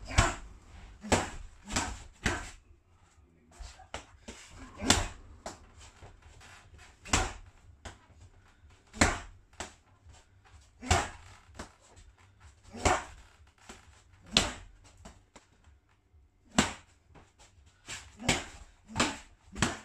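Blows landing in hand-to-hand combat training: sharp slaps and thuds of strikes on a partner's body and gloved hands, about fifteen at uneven gaps of one to two seconds.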